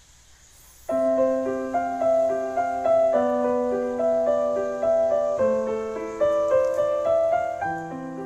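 Background piano music: a gentle melody of struck notes over held chords, starting about a second in.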